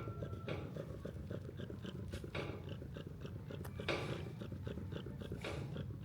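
Domestic cat purring steadily close to the microphone, with small repeated clicks and a few brief louder rustles over it.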